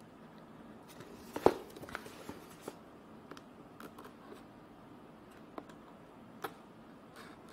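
A cardboard box being handled and opened by hand: a few scattered clicks and taps, the loudest a sharp snap about a second and a half in.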